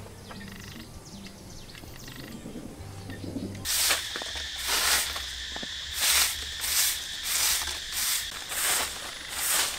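A broom sweeping a bare dirt yard in brisk, regular swishes, a little under two strokes a second, starting suddenly about four seconds in. Before that, quiet outdoor ambience with faint bird chirps, and under the sweeping a steady high drone.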